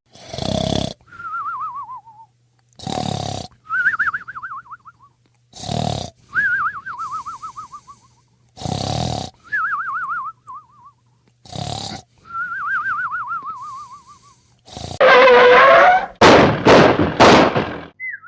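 Cartoon sound effects: a short noisy hit followed by a warbling whistle that slides down in pitch, repeated about every three seconds, five times over. Near the end comes a louder run of four buzzy, pitched bursts.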